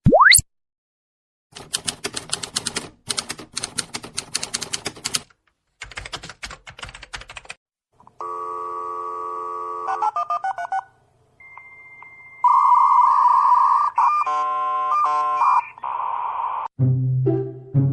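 A string of separate stock sound effects. It opens with a quick rising whistle, then about six seconds of rapid clicking with a short break, then electronic beeping and buzzing tones, the loudest a few seconds from the end.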